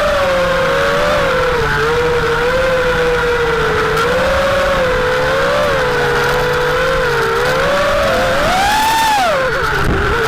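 Small FPV quadcopter's brushless motors whining, the pitch wavering up and down with the throttle. Near the end the pitch climbs sharply on a throttle punch, then drops steeply.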